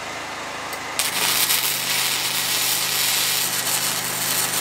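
Unimig Viper MIG welder arc: it strikes about a second in and crackles and sizzles steadily as a bead is laid on steel, then stops abruptly, over a steady machine hum.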